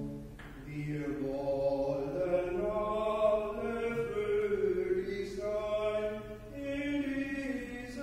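Church organ music: slow, sustained chords that shift in pitch every second or so.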